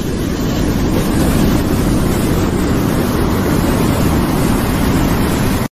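A steady, low rushing roar without tones or rhythm, like wind or surf. It builds a little over the first second and stops abruptly near the end.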